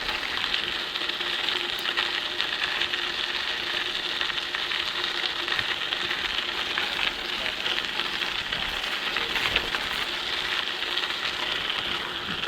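Steady rushing hiss of a bicycle ride along a trail, with no pauses or separate strikes.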